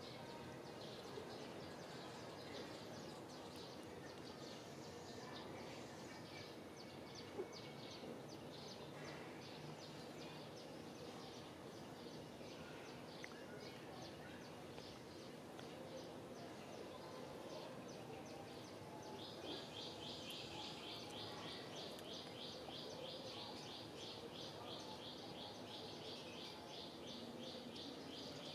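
Quiet outdoor ambience with a high chirping repeated rapidly and evenly, which grows louder about two-thirds of the way through. There is one faint click about seven seconds in.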